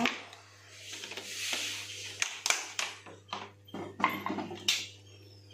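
Wooden spatula stirring a thick, oily pickle mixture in a nonstick frying pan: scraping and rubbing, with a run of irregular knocks and taps of the spatula against the pan.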